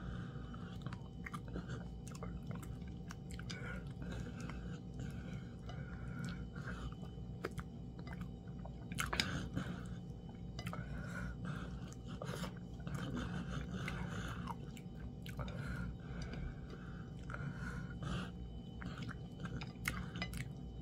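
A person chewing food close to the microphone, mukbang-style: wet smacking and mouth clicks that keep on throughout, with a sharper click about nine seconds in.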